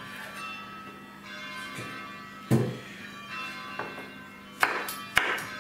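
Chef's knife chopping cherry tomatoes on a cutting board: one heavy thud about halfway through, then a few sharp chops near the end, over background music with held bell-like tones.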